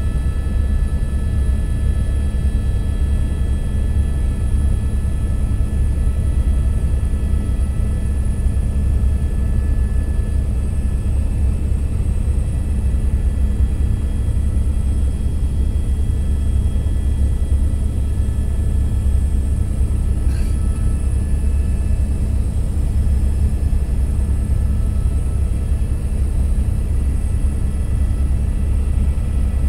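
Helicopter cabin noise in flight: a loud, steady low drone from the rotor and engine, with several steady high whining tones over it, heard from inside the cabin.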